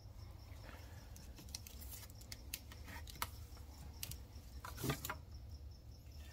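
Faint, scattered clicks and snips of a hand tool picking and cutting at the tape and shrink wrap of an e-bike battery pack, with a louder click about five seconds in.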